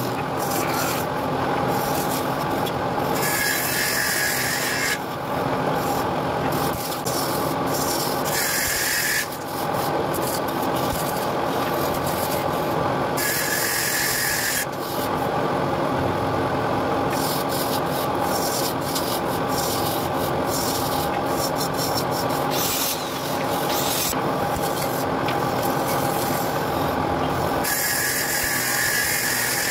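Wood-turning lathe running with a steady motor hum while the spinning wooden vase is worked by hand, rubbing and scraping against the turning wood. The scraping gets louder and hissier in several short stretches.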